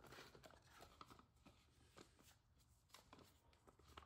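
Near silence, with a few faint clicks and rustles from a plastic pump sprayer being handled, mostly in the first second.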